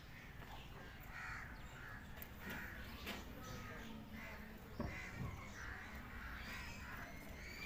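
Crows cawing over and over, with a single knock about five seconds in.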